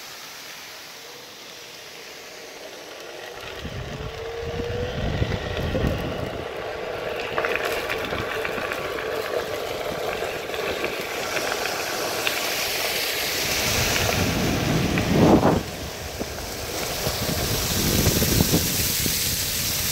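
A Onewheel's electric hub motor whining, rising in pitch as the board picks up speed over the first few seconds, under wind rushing over the microphone. Then falling water spraying and splashing onto the wet road, growing louder, with a sharp loud rush about fifteen seconds in.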